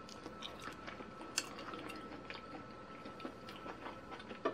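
A person chewing a mouthful of chicken with her mouth close to the microphone: faint scattered mouth clicks, one a little louder about a second and a half in, over a faint steady high tone.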